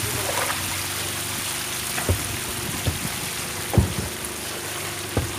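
A dense mass of small anchovies flapping and splashing in a lift net, making a steady hiss of pattering like heavy rain. A faint steady low hum runs underneath, and four dull thumps come between about two and five seconds in.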